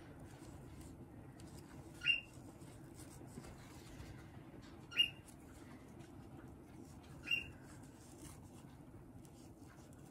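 Three short, high chirps, each sweeping quickly upward and then holding briefly, spaced about two and a half to three seconds apart, over faint steady room noise.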